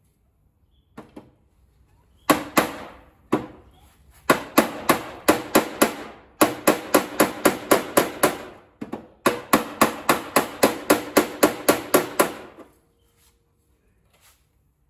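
Steel body hammer striking the rolled rear fender lip of a Mazda RX-7 (FC) over a dolly, each blow a sharp metallic knock with a short ring. After a few light taps, the blows come in steady runs of about four a second, with two brief pauses, and stop near the end. The hammering is bending the folded-in fender lip back out to its original shape.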